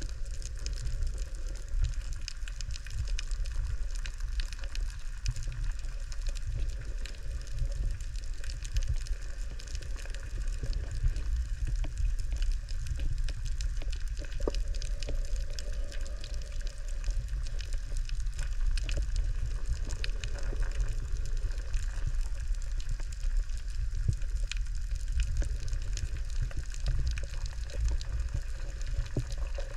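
Underwater noise picked up by a GoPro in its waterproof housing: a steady low rumble of moving water, with many faint crackling clicks scattered through it.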